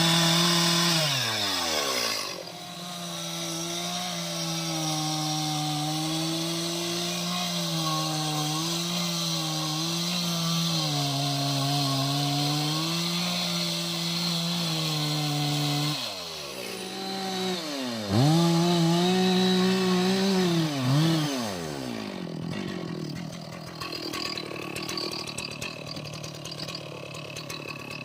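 Two-stroke chainsaw revving up, then running at a lower, wavering pitch for about thirteen seconds as it bogs under load, cutting through jackfruit wood. It revs up again briefly and then drops to a quieter, lower speed near the end.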